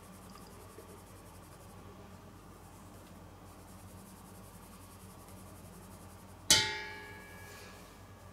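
A single sharp clang of stainless steel mixing bowls knocking together, ringing and dying away over about a second, near the end. Before it, only a faint low hum.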